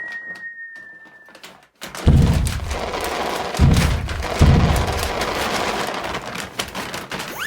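Dubbed-in cartoon sound effects: a thin whistle tone sinks slightly and fades out. About two seconds in, a long loud crashing rumble begins, with three heavy low thuds. A rising slide-whistle-like sweep starts right at the end.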